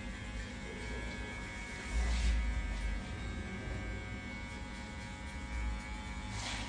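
Electric hair clippers running with a steady hum as they cut hair in a fade.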